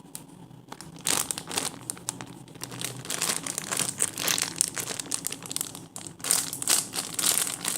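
Crinkling and crumpling of wrapping being handled, a quick irregular run of rustles that starts about a second in.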